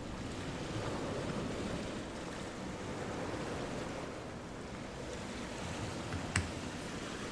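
Steady sizzling of flatbread frying in butter in a pan, with one sharp click about six seconds in.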